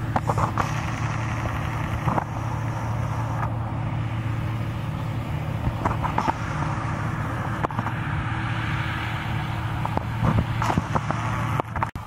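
Combine harvester running at work in a wheat field: a steady engine drone with the hiss of the threshing machinery and scattered short clicks. The level drops sharply near the end.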